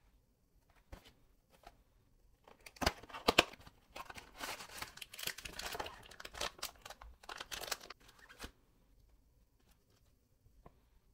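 Crinkling and rustling in a run of short, sharp crackles, from about three seconds in to about eight and a half seconds in, with the loudest snaps near the start of the run.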